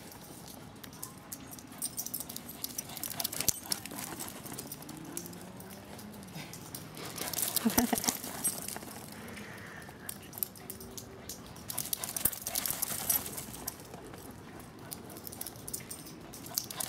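Dogs, including an Afghan hound, chasing each other in play: paws pattering and scuffing on dry, leaf-strewn dirt. A few low dog vocal sounds come through the middle, loudest in a short burst about eight seconds in.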